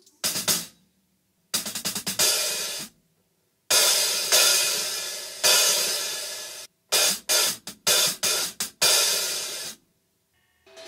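Centent Emperor 14-inch hand-made B20 bronze hi-hat played with drumsticks, in short phrases of quick strokes and open ringing washes, each cut off sharply, with silent pauses between phrases.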